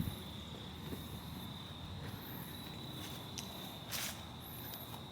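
Insects trilling steadily at a high pitch, with a couple of faint clicks about three and four seconds in.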